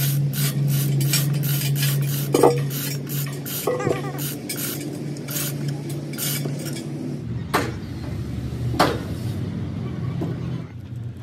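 Hand tool working metal in quick, even scraping strokes, about three a second, over a steady machine hum, with ringing metallic clinks about two and a half and four seconds in. The strokes stop about seven seconds in, and two sharp metal knocks follow.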